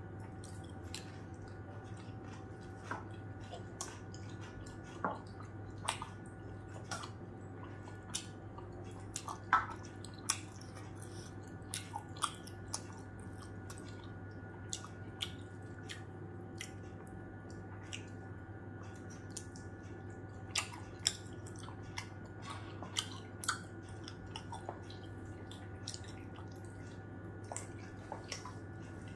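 Close-up mouth sounds of a person chewing steamed momos, with many short wet clicks and smacks scattered throughout. A steady low hum runs underneath.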